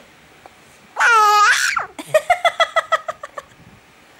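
High-pitched laughter: one long squealing note, then a quick run of about ten 'ha-ha' pulses that fades out.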